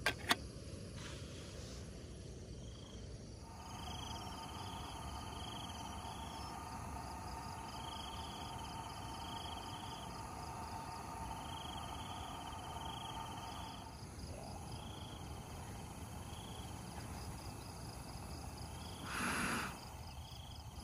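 Insects calling: a steady drone with short chirps repeating about every second or two, which stops about two-thirds of the way through. A sharp click comes near the start as the lid of a small camping kettle is pulled off, and a brief rustle follows near the end.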